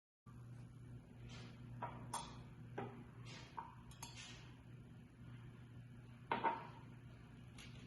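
About eight scattered light clinks and knocks of small hard objects, each with a brief ring, the loudest about six and a half seconds in, over a steady low electrical hum.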